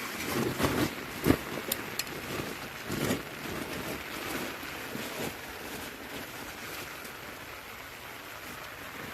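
Steady rain with a hiss of water, and a few sharp knocks in the first three seconds.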